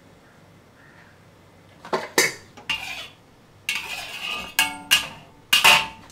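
Kitchen utensils and cookware clattering: a quiet start, then a string of sharp clinks and scrapes from about two seconds in, one with a brief metallic ring.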